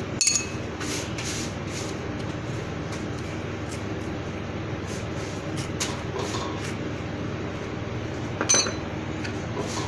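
A utensil clinking against a dish twice, sharp ringing clinks just after the start and near the end, with faint scraping between as green chutney is spread on toasted bread, over a steady low background hum.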